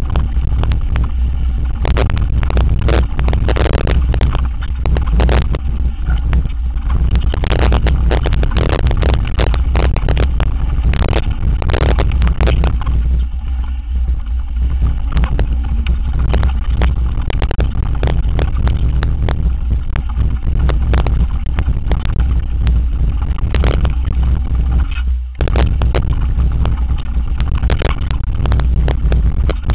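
Downhill mountain bike descending a rough gravel trail: wind buffeting the camera microphone as a steady low rumble, with frequent irregular rattles and knocks from the bike and tyres over rocks and bumps. The noise dips briefly about 25 seconds in.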